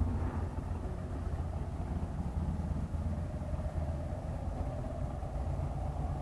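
Ford Explorer (a Jurassic Park Explorer replica) with its engine running, a steady low rumble.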